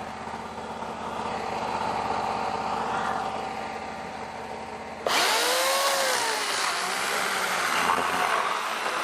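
Band sawmill running, its blade cutting through a pine log over the steady hum of the mill's engine. About five seconds in the sound suddenly gets louder and harsher.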